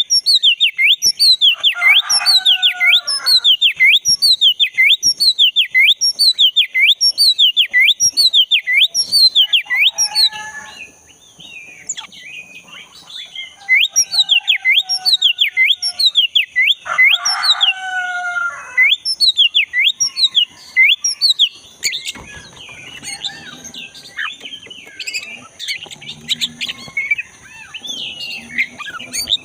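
Black-breasted oriental magpie-robin (kacer) singing: long runs of loud, repeated down-slurred whistles, about two a second, broken twice by lower, harsher calls, and turning to a more varied chirping song in the last third. A steady high-pitched tone comes in about a third of the way through.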